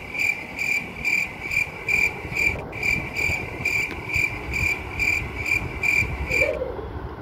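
Cricket-chirp sound effect: a very regular run of short, high chirps, about two a second, with one brief break in the middle, cutting off abruptly near the end.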